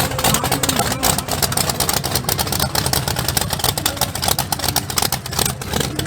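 Car engine running steadily with a low rumble, with voices in the background.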